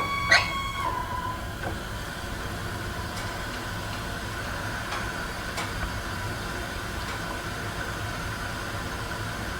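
High-pitched squeal in household water pipes, with water flowing, which the owner puts down to the pressure control valve. About a second in, as the house's main shut-off valve is closed, the squeal sags in pitch and loses its upper tone. A fainter whine and the hiss of flow go on, with a few small clicks.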